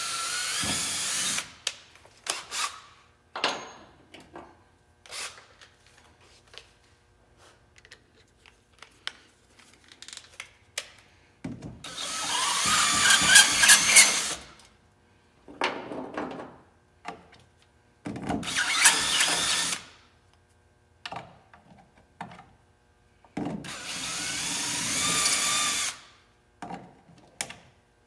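Power drill boring out a hole in a fuel pump hat for a bulkhead fitting. It runs in five separate bursts of one to three seconds, with clicks and knocks of handling between them.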